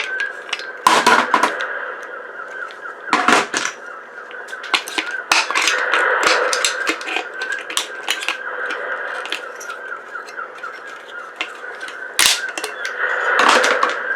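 Handling and prying apart the plastic and metal parts of an old refrigerator ice maker: many scattered clicks and clatters, with a few louder knocks about a second in, around three seconds in, and twice near the end.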